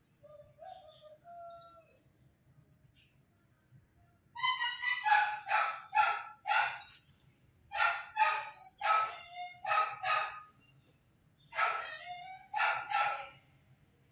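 Kitten mewing: about a dozen short, high mews in three bunches, starting about four seconds in.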